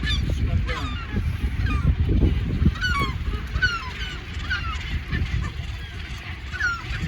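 A flock of gulls calling: many short, overlapping, falling cries, several a second, over a steady low rumble.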